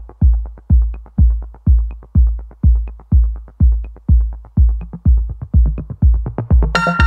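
Electronic dance music: a heavy kick drum about twice a second with quick hi-hat ticks between the beats, and a bright synth chord coming in near the end.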